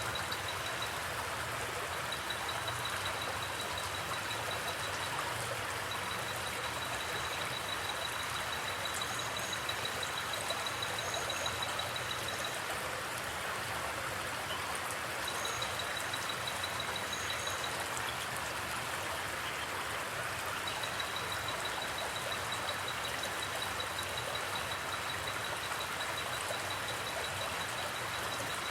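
Steady rush of a forest creek's flowing water. A high, rapid trill comes and goes in long stretches over it, with a few faint high chirps.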